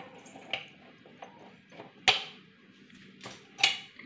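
Small clicks and taps of a plastic cable tie being cut and pulled off a gas stove's brass burner, with two sharper clicks about two and three and a half seconds in.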